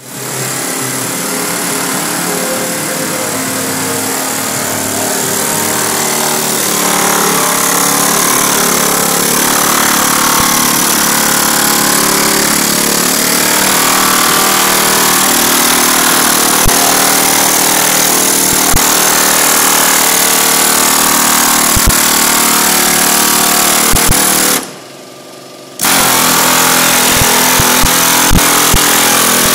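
Pneumatic air hammer with a chasing tip, hammering bronze sheet in repoussé work: a loud, continuous rapid hammering of the tool against the metal. It stops for about a second near the end, then starts again.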